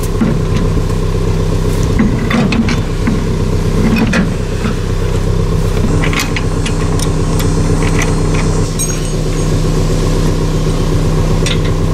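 Pickup truck engine idling steadily, with a few sharp metal clicks and chain rattles as a boat trailer's coupler is dropped onto the hitch ball and its latch is worked.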